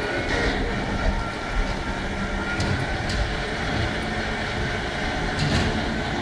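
Automated guided transport cart driving through a tunnel: a steady electric drive hum and rolling rumble, with a few light ticks.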